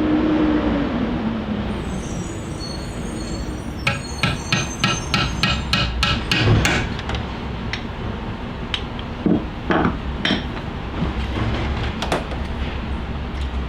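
Metal tapping and clicking as a lock ring is worked back onto a radiator fan motor shaft to hold the fan blade: a quick run of sharp taps, about five a second, from about four to seven seconds in, then a few single knocks. A steady low hum runs underneath.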